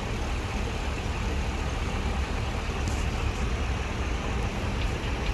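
Steady low rumble of background noise with a faint hiss above it, unchanging throughout.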